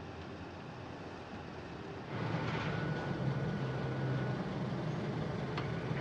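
Low steady rumble inside a car cabin. About two seconds in, a louder, steady vehicle rumble with a low hum begins, with a faint whine for a couple of seconds. One sharp click near the end.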